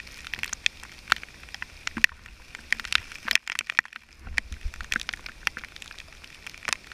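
Heavy rain, with raindrops striking the GoPro camera housing as many irregular sharp ticks over a low rumble.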